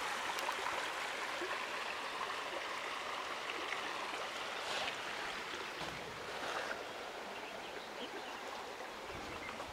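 Shallow, stony river flowing, a steady rush of water.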